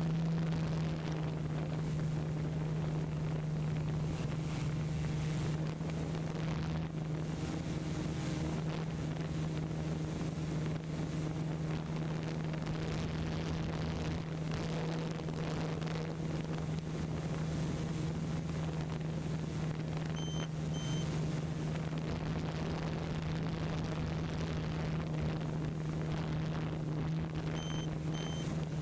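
A steady low hum under a rushing noise. Two pairs of short, high electronic beeps sound about twenty seconds in and again near the end.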